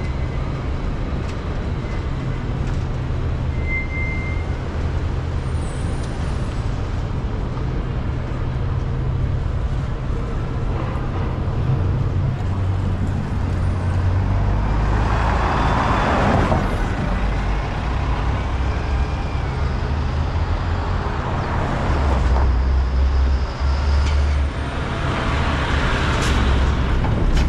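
Steady low rumble of a car driving through city traffic, with the rushing sound of other vehicles going by, swelling loudest twice in the second half.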